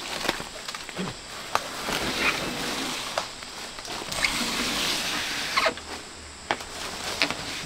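Footsteps and rustling through dry leaf litter and undergrowth, with scattered sharp snaps and knocks.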